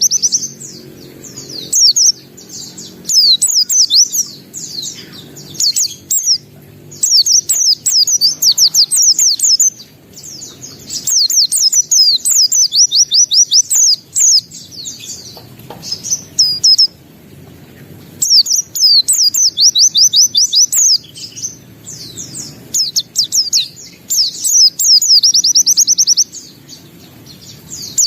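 Pleci (white-eye) singing in full voice: loud bursts of fast, high, sweeping chirps strung into rapid trills lasting a second or a few seconds each, with short pauses between them.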